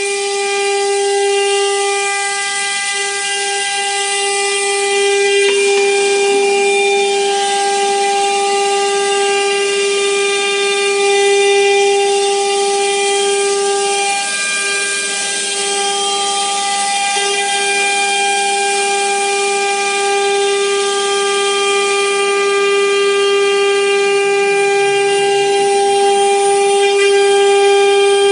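YIHAI YH-2050 CNC router's spindle running with a steady high whine and overtones over a strong hiss, the tone wavering briefly a couple of times midway.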